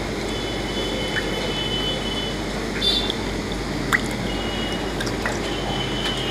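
Water splashing and dripping in a plastic tub as hands lift a handful of flowerhorn fish out of it, with a few short sharp drips or splashes, the loudest about four seconds in, over a steady background hiss.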